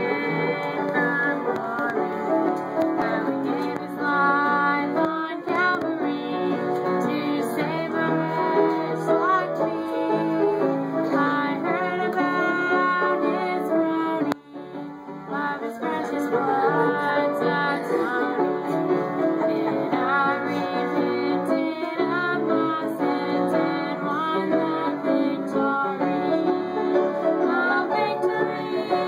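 A group of people singing together, with a short break about fourteen seconds in.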